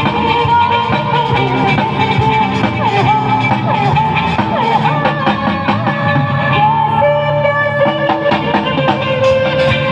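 Music: a song with a melody line, guitar, drums and sustained notes.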